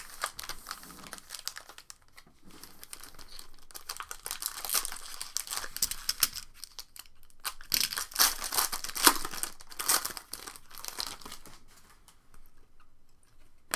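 Trading-card pack wrappers crinkling and tearing as packs are ripped open and cards handled, a string of short crackles that swell in louder spells about four and eight seconds in.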